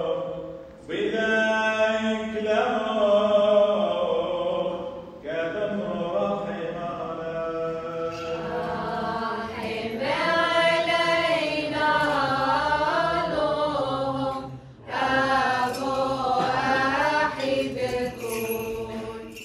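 Syriac Orthodox liturgical chant, sung in long melismatic phrases with the pitch winding up and down, broken by short breaths about a second in, about five seconds in and near fifteen seconds in.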